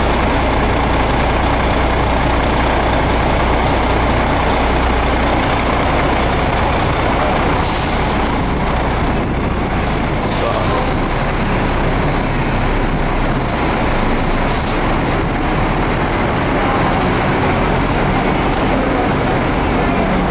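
Steady traffic noise from idling buses and cars at a roadside kerb. A low engine hum stands out through the first several seconds, and a few brief hisses come through.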